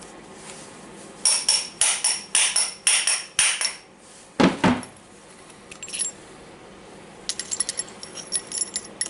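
Hammer tapping a metal punch to drive the ball bearing out of a Makita DGA452 angle grinder's gear housing, struck lightly to avoid damaging the housing. About ten quick, ringing metallic strikes come in two seconds, then a single duller knock, then a fast run of lighter taps near the end.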